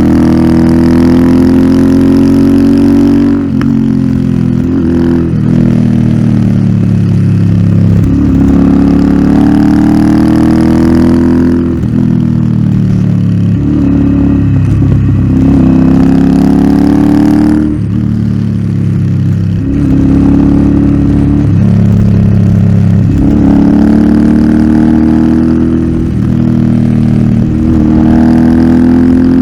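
Royal Enfield Interceptor 650's 648 cc parallel-twin engine running loud through an aftermarket Nuke exhaust. It pulls up through the revs again and again, each time rising in pitch for a few seconds and then dropping off at a gear change or throttle lift.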